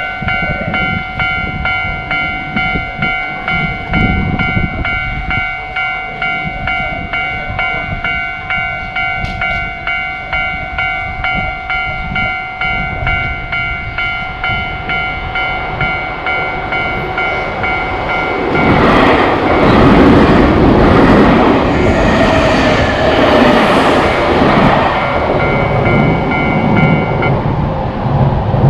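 Japanese railroad crossing alarm ringing in a steady repeating beat, and about two-thirds of the way through a train rushes past loudly. The alarm and the train noise stop together near the end.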